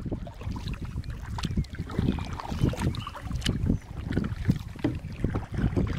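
Wind buffeting the microphone in an irregular low rumble, over a kayak being paddled, with scattered small splashes and drips from the paddle blades.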